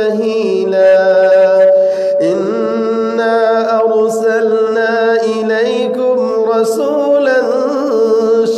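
A man's voice reciting the Quran in a slow, melodic chant, holding long drawn-out notes that bend gently in pitch.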